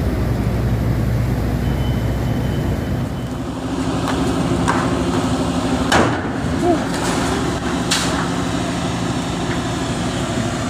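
A ship's engine running with a steady low hum, with several sharp bangs over it. The loudest bang comes about six seconds in and another about two seconds later.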